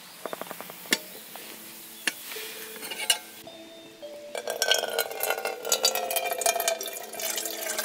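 Metal clinks and knocks from a Trangia stainless-steel kettle being handled and opened. About four seconds in, water starts pouring from a bottle into the kettle, a loud splashing stream.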